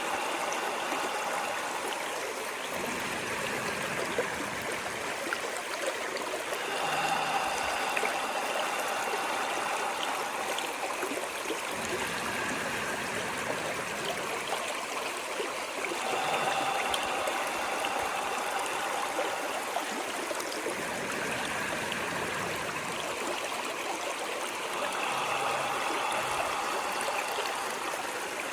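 A stream of running water, rushing and gurgling steadily, with a slight swell about every nine seconds.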